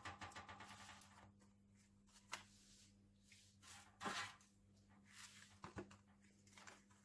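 Faint handling sounds: a few light taps and rustles as breaded baked aubergine slices are laid into an aluminium foil tray, the clearest about four seconds in, over a low steady hum.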